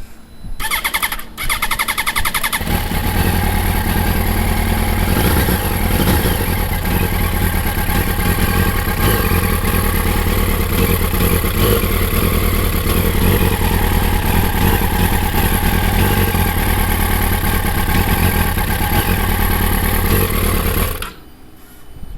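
Yamaha YZF-R1 inline-four engine cranked on its electric starter for about two seconds, catching and then idling steadily before being switched off near the end. The bike is under inspection for poor running at idle and low speed.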